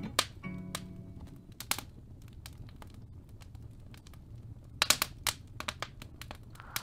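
Scattered sharp clicks and crackles at irregular intervals, with a quick cluster of them about five seconds in.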